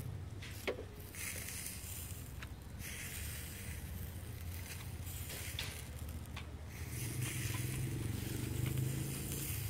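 Lavash flatbread and a metal kebab skewer being handled, rustling and scraping in short patches with a click about a second in, over a steady low rumble.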